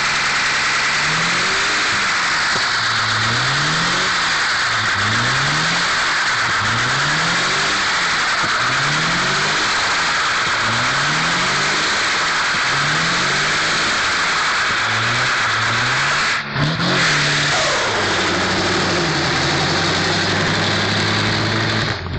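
Ford Sierra doing a burnout: the engine is revved up and down over and over, about once every second and a half, over continuous tyre squeal from the spinning wheels. About sixteen seconds in the revving stops and the car pulls away at a steadier engine note, tyres still spinning and squealing.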